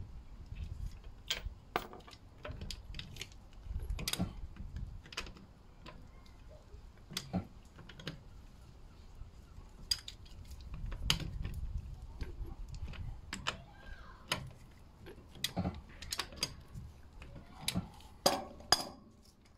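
Irregular metallic clicks and clinks of a socket wrench and wheel bolts as a road wheel is bolted back onto the hub, with the sharpest clinks near the end.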